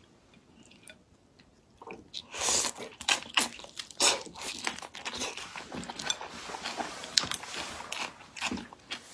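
Close-miked biting and chewing of raw marinated shrimp: a dense run of crunches and clicks that starts about two seconds in.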